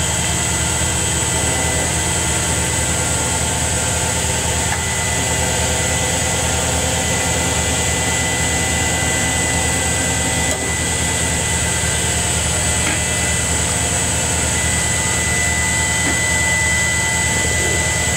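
Omni Turn GT-75 gang-tool CNC lathe running under power, its tool slide moving: a steady machine hum with two even, high-pitched whines over it.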